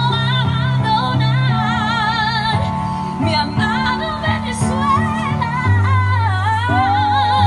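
Music: a solo voice sings long held notes with wide vibrato over a steady bass accompaniment.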